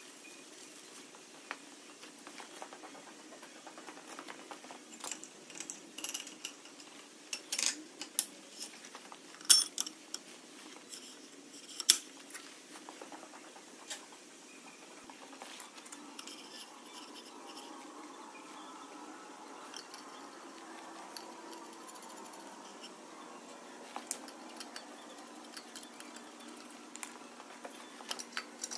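Scattered metallic clinks and knocks of clutch parts and tools being handled and fitted onto a tractor flywheel. Two sharp knocks near the middle stand out as the loudest.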